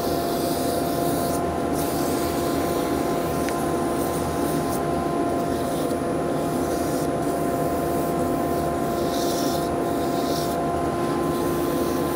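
Dust extractor and wood lathe running with a steady hum, while 240-grit abrasive paper rubs against a spinning wooden bottle stopper in short spells of hiss.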